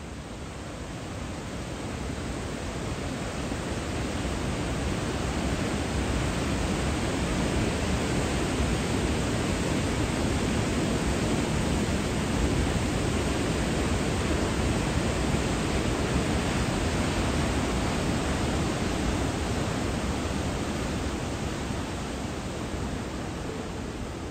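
Large mountain waterfall swollen with monsoon rain: a steady, heavy rush of crashing water that fades in over the first few seconds and then holds even.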